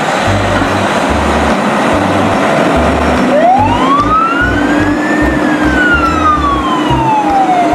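Siren and truck-engine sound effect: a steady noisy engine rumble, with one siren wail that rises over about two seconds and then falls away slowly.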